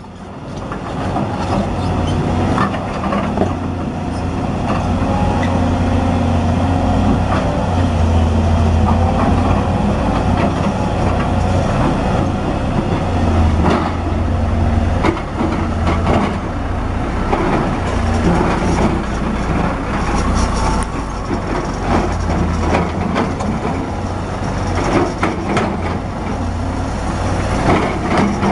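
Volvo EC210B crawler excavator's six-cylinder diesel engine running under load while digging, its note rising and falling as the hydraulics work. Scattered clanks and knocks of the bucket against rock and soil come through.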